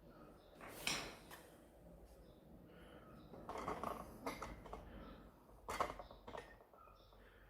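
Sharp clicks and light clatter of small hard plastic and metal parts being handled as a 12A toner cartridge is opened and its magnetic roller changed: one about a second in, a quick cluster in the middle, and another near the end.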